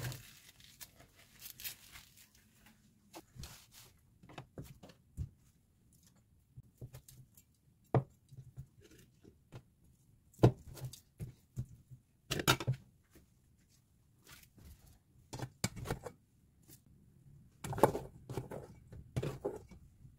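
Kitchen food-prep noises: a cleaver slicing luncheon meat and knocking on a wooden cutting board, with crinkling of dried laver and scattered taps of hands and utensils. The knocks come irregularly, the loudest about ten seconds in and again near the end.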